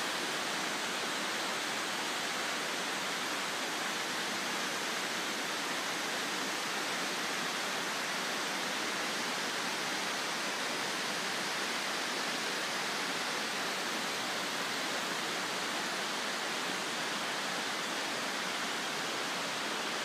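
Steady rushing of a tall waterfall, its water dropping about 80 m into a rock pool: one even, unbroken hiss.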